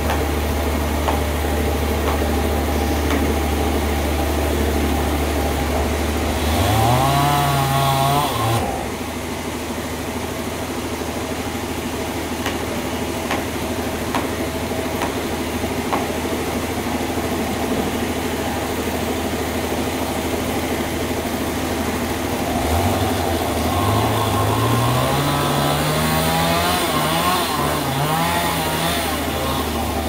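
A saw engine running steadily at low speed, then revving up twice: briefly about six seconds in, and again for several seconds from about two-thirds of the way through, its pitch climbing in steps and wavering.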